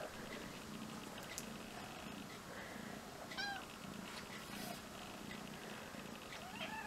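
Kitten purring faintly while held close, with a short high mew about three and a half seconds in.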